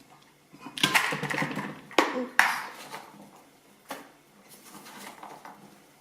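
Clatter and sharp knocks of a plastic blender jar and lid being handled, with a few loud clicks and bumps between blends of celery.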